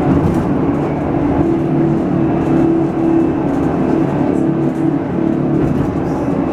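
Electric tram running at a steady speed, heard from inside the car: a steady motor hum over the rumble of the wheels on the rails.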